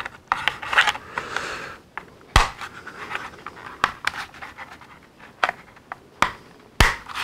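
Hard plastic parts of a Hasbro Tatooine Skiff toy being handled and pushed together: rubbing and scraping, then several sharp clicks as a side part is snapped into the hull.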